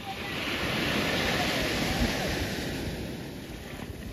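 Small surf wave washing up a sandy shore: a hiss that swells over the first second, holds, and fades away after about three seconds.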